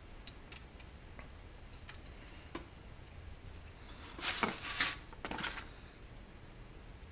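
Small metal clicks and taps from hand tools and the engine's metal parts being handled during disassembly, then a louder burst of metal rattling and scraping about four seconds in that lasts a second and a half.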